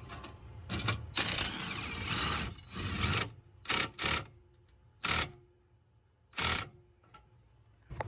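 Short hard clacks and rattles of RV levelers being put down: scraping and clatter in the first few seconds, then about four separate sharp knocks in the second half.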